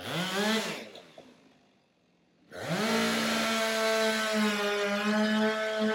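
Petrol chainsaw revved in a short blip, then, after a brief pause, run at full throttle with a steady high pitch for about four seconds as it cuts down through a log.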